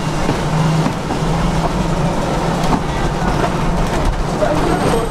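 Victorian electric tramcar running along its track: an even rumble of the wheels on the rails with a steady low hum that drops out briefly now and then.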